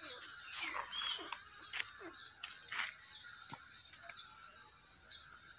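A bird chirping over and over, short high notes about twice a second, with scattered faint clicks and rustles.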